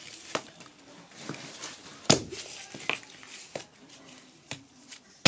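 Irregular hollow knocks and taps of cardboard firework tubes being handled and set down on a concrete floor, about six in all, the loudest about two seconds in.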